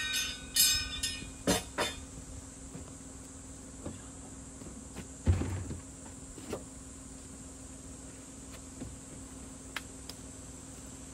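Metal clanking and ringing as a folding metal camp frame is handled, followed by a few sharp knocks. About five seconds in comes a single heavy thud, the plastic cooler being set down on the van's cargo floor.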